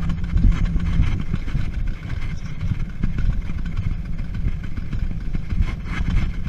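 Alpine coaster sled running down its metal rail track, a loud, continuous, uneven low rumble from the wheels on the rails.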